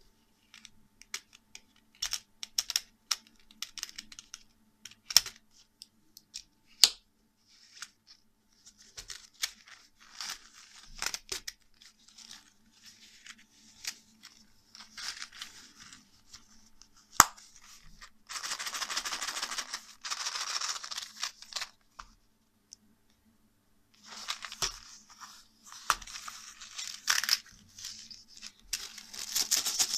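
Small steel screwdriver bits and the screwdriver handle clicking against each other, with rustling from the leather-look wallet case as it is handled, opened and folded. A quick run of rattling ticks comes near the end.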